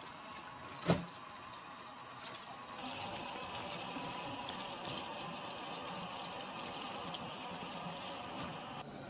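Tap water running over fresh greens in a plastic colander in a stainless steel sink, with hands turning the leaves under the stream. A single sharp knock about a second in, and the water grows louder from about three seconds in.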